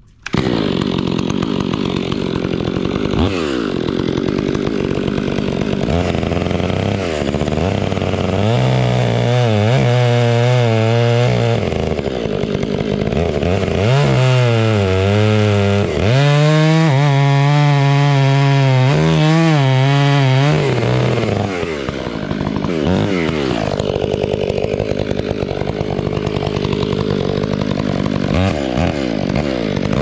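Gas chainsaw running and cutting through a felled locust log, its engine pitch rising and dipping again and again as it is throttled and loaded in the wood.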